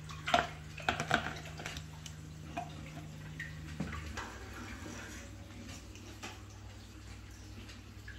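Reef aquarium equipment humming steadily under faint trickling water, with a few sharp clicks about a second in and a couple more later.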